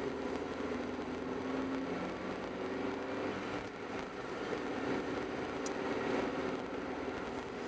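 A car driving steadily along a road, heard from inside the cabin: an even engine drone mixed with tyre and road noise.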